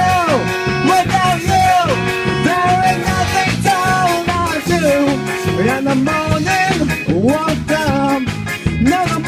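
Live band playing an upbeat song with guitars over a steady beat, and a lead melody that bends and slides in pitch above it.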